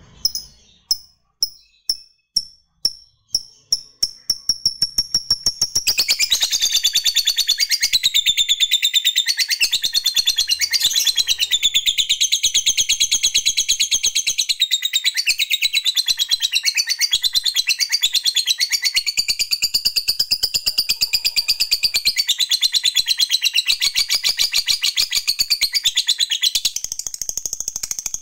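Lovebird ticking (ngetik), a run of single sharp clicks that speed up, breaking about six seconds in into a long unbroken high chatter of very fast repeated notes. This is the long trill (ngekek panjang) prized in fighter lovebirds, and it eases slightly near the end.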